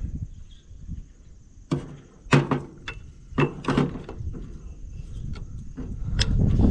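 A handful of sharp knocks and clunks from hands and tools working new drive belts onto the engine pulleys of a Volvo L70 wheel loader, most of them bunched in the first few seconds with one more near the end, over a low rumble that grows louder near the end.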